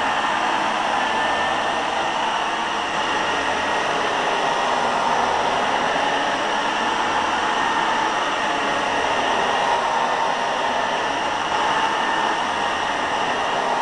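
Old Hoover carpet cleaner running steadily, its motor giving a constant rushing whir with a faint steady whine.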